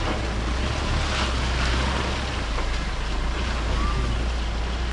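A vehicle driving: a steady low rumble with road and wind noise.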